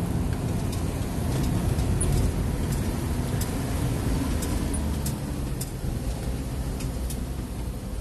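Shuttle vehicle's engine and road noise heard from inside the cabin while driving downhill on a mountain road: a steady low drone with a few faint light clicks, easing off slightly about halfway through.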